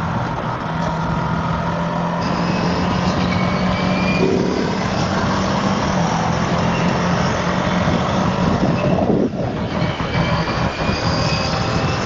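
Ducati Multistrada V4 S's V4 engine under way as the bike gathers speed to about 75 km/h, mixed with heavy wind rush on the microphone. The noise dips briefly about nine seconds in.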